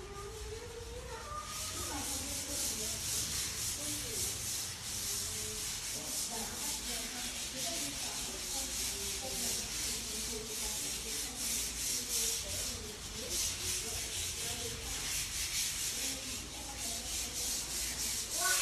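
Rhythmic back-and-forth rubbing strokes of hand sanding. They start about a second and a half in and keep going steadily, with faint voices underneath.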